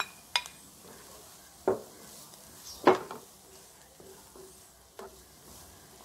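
Spatula stirring seafood in a nonstick wok over a faint sizzle, with about five short knocks of the spatula against the pan, the loudest about three seconds in.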